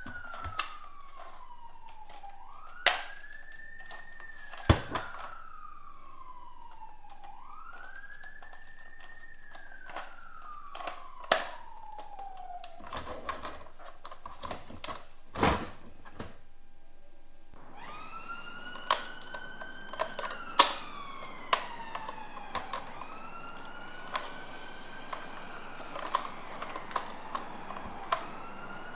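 Electronic siren from a toy ambulance's sound unit, a wail sweeping up and down about every three seconds, with sharp plastic clicks and knocks from the toy's doors being opened and shut. The first siren stops about halfway through, and after a short pause a second toy siren with a hissier tone starts.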